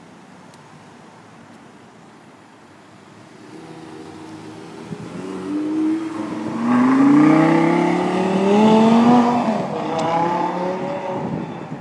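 Lamborghini Gallardo LP560-4's V10 engine pulling away from a standstill and accelerating hard. About four seconds in, the engine note starts to climb; it rises in pitch through the gears with a drop at each upshift, is loudest about seven to nine seconds in, and fades near the end as the car drives off.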